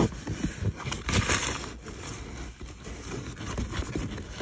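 A hand rummaging through brown kraft-paper packing: an irregular rustling and crinkling of paper with scattered small clicks.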